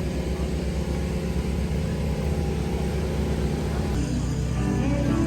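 Steady low drone of a running vehicle engine. Music starts to come in about four seconds in.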